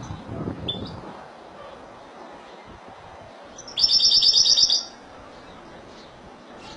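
Caged European goldfinch (Spanish goldfinch) singing: a short chirp just before a second in, then, about four seconds in, a loud, very fast trill of repeated high notes lasting about a second.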